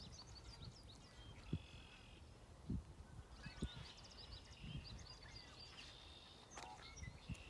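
Songbirds chirping and trilling, with a few brief low knocks in between.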